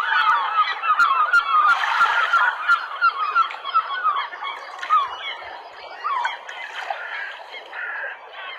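A flock of waterbirds calling over one another: many short, overlapping honking calls, densest in the first half and thinning toward the end.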